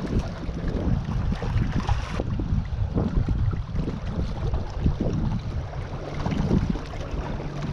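Wind buffeting the microphone, with choppy lake water lapping and splashing against the shoreline rocks.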